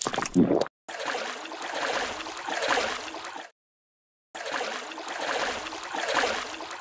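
Shallow water sloshing and gurgling in two passes of about three seconds each, each swelling and fading, with a short silence between them. Under a second in, the tail of a louder crunchy sound cuts off.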